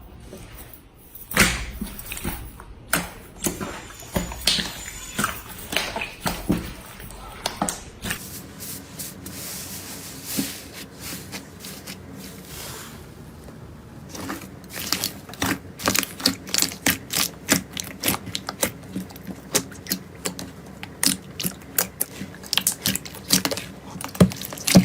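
Slime being pressed, poked and squeezed by hand, making wet clicks and pops. The clicks are scattered at first, thin out to a soft hiss around the middle, then come in quick runs of several a second.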